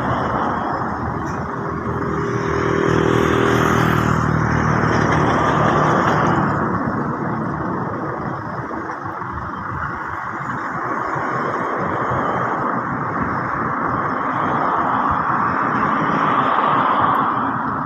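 A motor engine running under a steady rushing noise. The engine's hum is strongest from about one to six seconds in, then fades into the rushing noise.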